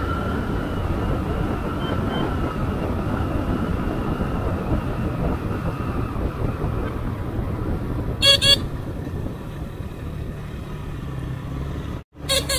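Motorcycle riding noise, a steady mix of engine and wind rush, with a horn sounding two quick beeps about eight seconds in and one more short beep at the very end, just after a brief cut in the sound.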